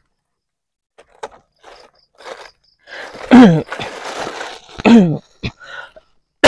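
A man coughing twice, hoarse and voiced with a falling pitch, about a second and a half apart, with faint rustles and clicks around them.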